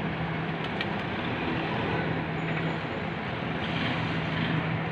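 Utility pickup truck's engine idling: a steady low hum over street noise, with a couple of faint ticks about a second in.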